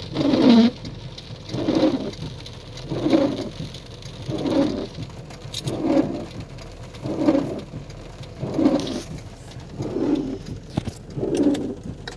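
Car windshield wipers sweeping across a rain-wet windshield, heard from inside the car: the rubber blades make a low rubbing sound on each sweep, about once every second and a half.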